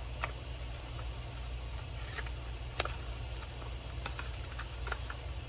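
A small cardboard medication box being handled and turned over, giving a few scattered light clicks, over a steady low hum.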